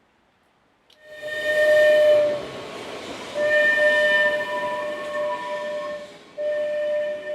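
Steam whistle of a small replica Lewin steam locomotive, blown three times over a hiss of steam: a loud blast about a second in, a longer one after a short break, and a third starting near the end.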